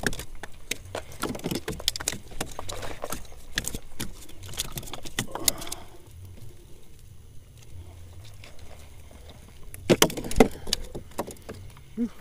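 Scattered clicks, knocks and rattles of handling in a small wooden boat as a just-landed hampala is dealt with: busy for the first half, quieter in the middle, then a few louder knocks near the end.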